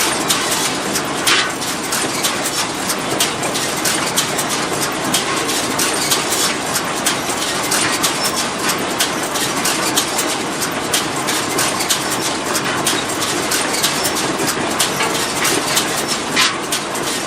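Tractor-driven hay baler running: a loud, steady mechanical clatter with rapid rattling and clicking throughout.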